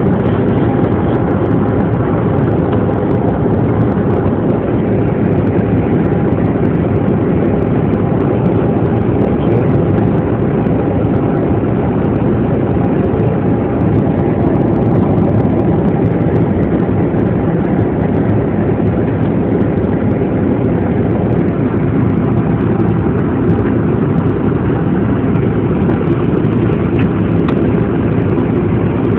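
Steady low rumble of a moving city vehicle, heard from inside its cabin: the running motor and wheels on the road blend into one even noise that does not change.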